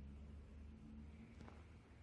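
Near silence: a faint low hum, with one soft click about one and a half seconds in.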